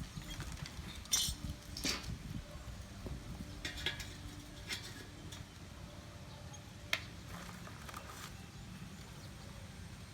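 A few scattered, faint metallic clinks and taps over a low background rumble, the sharpest about seven seconds in.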